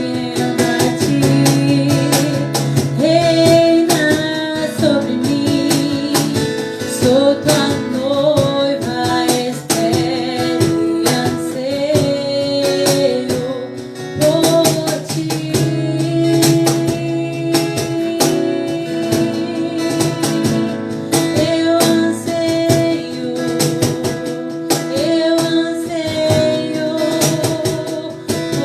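Live worship song: a voice singing a melody over guitar, with regular sharp percussive strikes keeping the beat.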